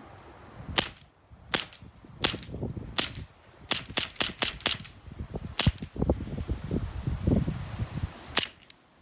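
CO2-powered airsoft 1911 pistol firing about a dozen semi-automatic shots, sharp cracks at uneven spacing, with a quick string of five shots about four seconds in and a last pair near the end.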